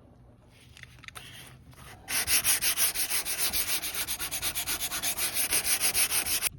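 Sanding on the rusty, multi-layer painted body panel of a Mazda RX-7, stripping paint and rust. Faint scattered scrapes come first, then about two seconds in a loud, rhythmic rubbing starts at about four strokes a second.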